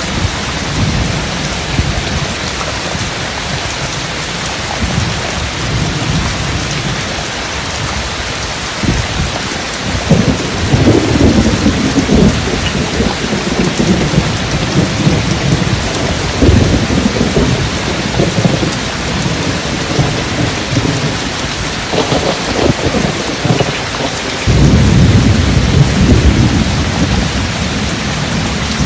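Steady heavy rain with deep rolling thunder. The rumbles swell several times, and the loudest comes in suddenly a few seconds before the end.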